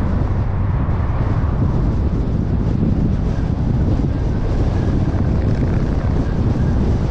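Steady low rumble of a car driving: tyre and wind noise, with no distinct events.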